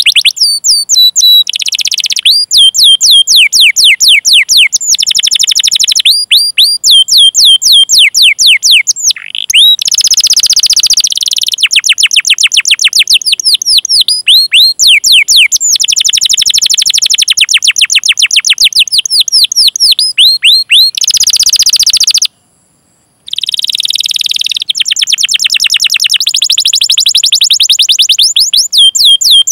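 Canary singing a long, fast song of repeated 'cuit cuit' chirps, each a quick falling whistle, strung together into rapid rolling trills. The song breaks off for about a second, about 22 seconds in, then starts again.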